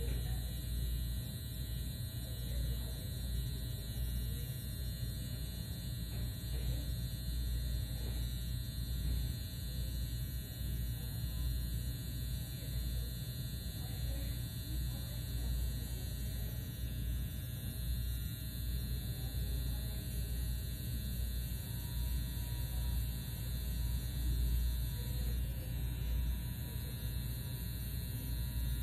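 Corded permanent-makeup machine buzzing steadily while its needle works pigment into an eyebrow.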